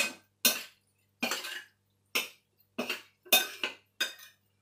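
Spoon and fork clinking against a bowl as a noodle salad is tossed by hand: short sharp clinks, unevenly spaced about every half second.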